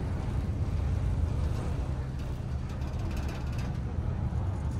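Tourist river boat's engine running with a steady low rumble, heard on board.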